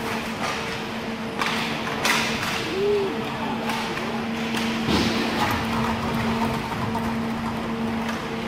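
Inline hockey play: sticks, puck and skates knocking and clacking against the court and boards, with sharp knocks about one and a half, two and five seconds in. A steady hum and the noise of skating run underneath.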